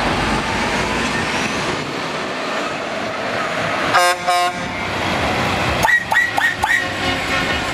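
A MAN heavy truck with a loaded flatbed pulling away, its diesel engine running steadily. About four seconds in comes a short double blast on a truck horn. Two seconds later come four quick, high-pitched toots.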